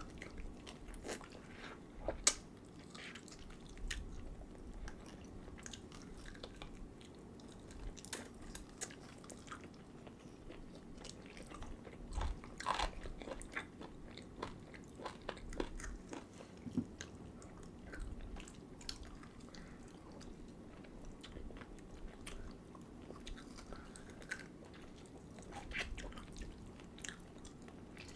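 Close-miked eating: chewing and biting into food, with many short, scattered wet clicks and smacks.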